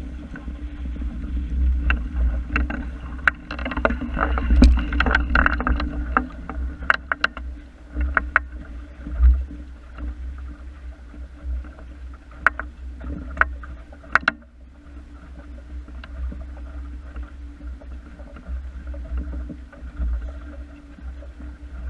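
Water slapping and splashing against the hull of a small wooden sailing dinghy under way, with many scattered sharp slaps, busiest in the first few seconds and easing briefly past the middle. Wind buffeting the microphone adds a steady low rumble.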